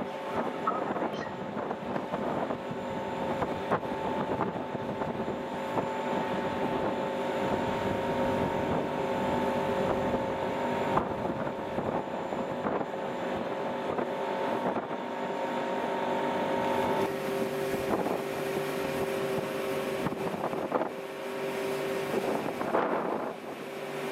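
Steady machinery hum of a large passenger ferry, heard on deck, with wind on the microphone. The hum holds several steady notes, and about two-thirds of the way through one note drops out and a lower one takes over.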